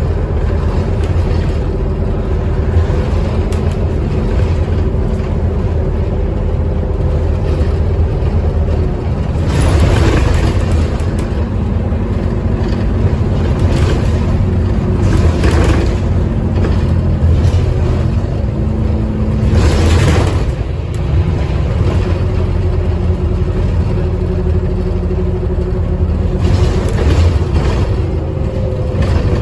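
Scania OmniCity double-decker bus's diesel engine running steadily under way, heard from inside the passenger saloon, with a low drone and a shift in engine note about two-thirds through. Several brief rushing swells of passing traffic rise over it.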